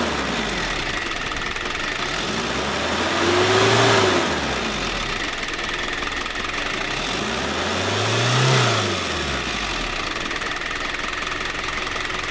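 1994 Daihatsu Rocky's 2.8-litre DL-52 four-cylinder diesel engine idling, revved up and let back down twice, about four seconds in and again about eight and a half seconds in.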